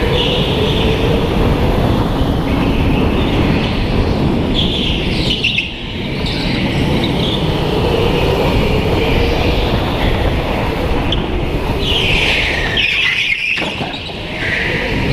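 Indoor rental go-kart running flat out, heard from on board: a steady rumble with a motor whine that rises and falls with speed. Tyres squeal briefly in the corners, about five seconds in and again near the end.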